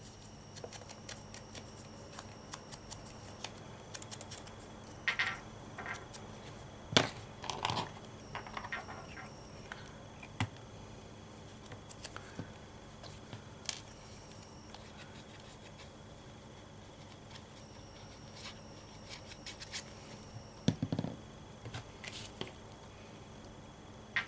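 Hands handling paper and small craft tools on a cutting mat: scattered soft clicks, taps and paper rustles, with sharper knocks about seven seconds in and again late on.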